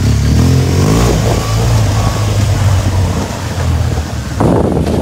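Motorcycle engine running as the bike is ridden along a street, its pitch rising in the first second as it speeds up. A brief burst of noise comes near the end.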